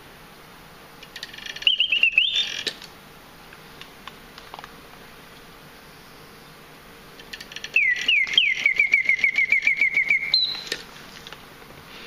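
Antique German singing bird automaton's clockwork bellows and piston whistle giving two phrases of mechanical birdsong: a short run of swooping whistled notes, then after a pause a longer phrase of swoops running into a fast trill of about seven notes a second that ends on a higher held note. Faint clicks of the movement run through each phrase.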